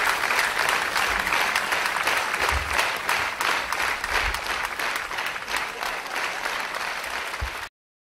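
Concert hall audience applauding, a dense clatter of many hands clapping that slowly thins and then cuts off suddenly near the end.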